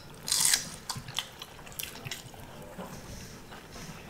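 Close-up mouth sounds of people eating pork with their fingers: chewing and wet smacks, with one louder noisy burst just after the start and scattered small clicks after.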